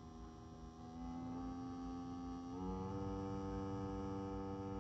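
Low humming test tone from a frequency-generator app played through a small portable speaker, around 80 to 97 Hz with strong overtones. It steps up in pitch about a second in and again past halfway, and gets louder with each step.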